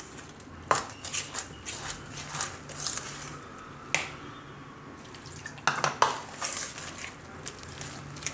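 A metal spoon stirring a thick, wet mix of mashed banana and wheat flour in a stainless steel bowl, scraping and knocking against the bowl. Sharp clinks of spoon on steel come about a second in, around four seconds and twice around six seconds.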